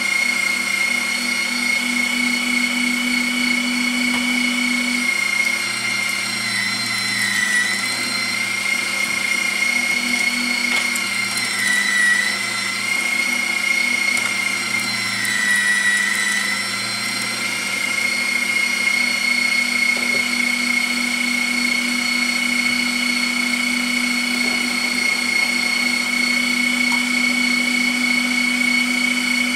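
Bosch MFW3640A electric meat mincer's motor running with a steady high whine. Its pitch dips briefly three times around the middle.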